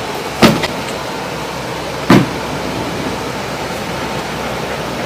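Two sharp knocks, about a second and a half apart, over a steady background hiss.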